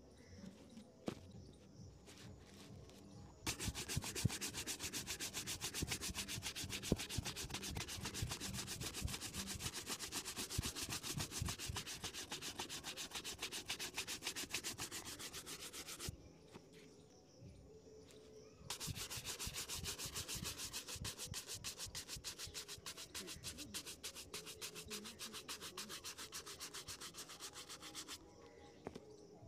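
Bristle shoe-shine brush scrubbing quickly back and forth over a leather shoe, in two long spells of rapid strokes with a pause of a couple of seconds between them.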